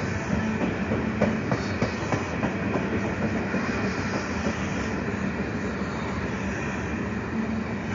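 Freight train rolling past: steel wheels clacking over the rails above a steady low rumble and hum.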